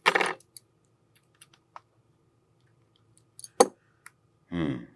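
Scattered small clicks and taps of a disassembled compact camera's small parts being handled, with one sharp click about three and a half seconds in.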